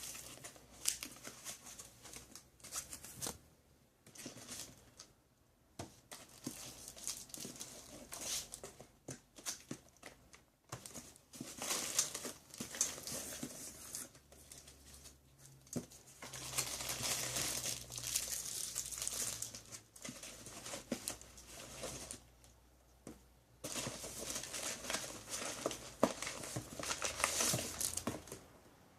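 Shipping packaging being torn open and crumpled by hand, in irregular spells of crinkling and rustling with a few sharp clicks.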